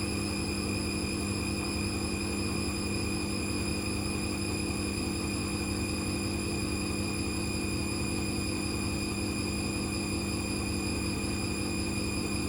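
Hoover Custom Vision washing machine running with a steady motor hum and a constant high whine, unchanging throughout.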